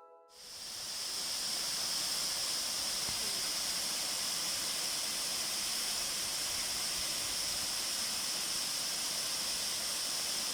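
Steady rushing of a waterfall: a constant, even hiss of falling water that fades in just after the start.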